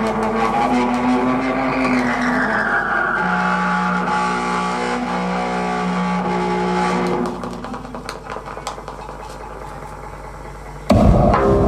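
Live electro-industrial music: held, droning electronic tones with a falling sweep, thinning out and dropping in level about seven seconds in, then a sudden loud hit as the full band comes back in near the end.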